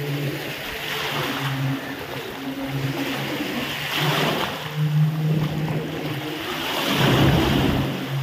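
A boat's engine running with a low, steady hum that fades in and out, over the rush of sea water and wind.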